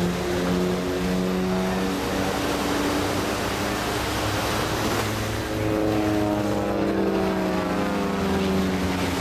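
Propeller aerobatic aircraft engine drone, its pitch sliding down as a plane passes about a second in and again from about six seconds in, over steady surf washing on the beach.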